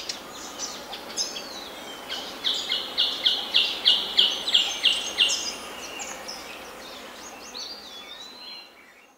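Birds calling and singing, a mix of chirps and whistles. In the middle one bird repeats a loud note about four times a second for some three seconds. The sound fades out at the end.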